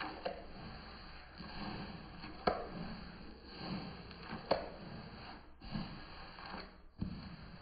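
Flat paintbrush stroking paint onto a wall, a soft swish repeating about once a second, with a few sharp clicks in between.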